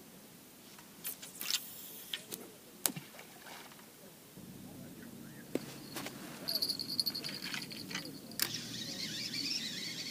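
Feeder rod being cast and its spinning reel worked: a few sharp clicks, then the reel winding in line in short spells from about six and a half seconds in.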